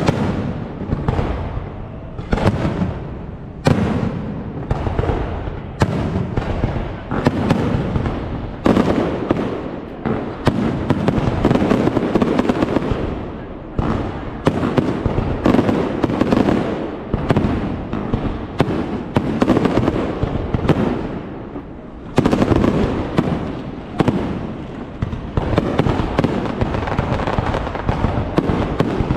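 Fireworks going off in rapid succession: a dense run of booms and bangs, each trailing off into crackle and echo, with a brief lull about three-quarters of the way through before the bursts pick up again.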